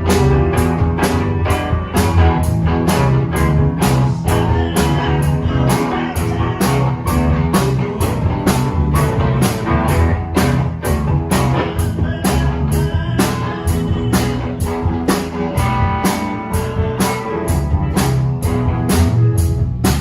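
A rock band playing a blues-rock groove: guitar and bass over a drum kit keeping a steady beat.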